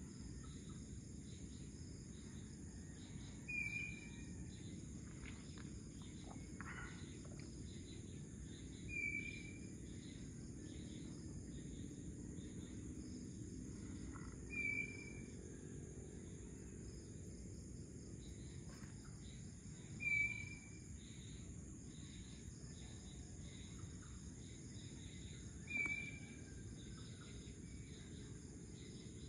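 Outdoor pre-dawn ambience: a steady high insect drone over a low, even rumbling hiss. Five times, about every five and a half seconds, a single short high call stands out as the loudest sound.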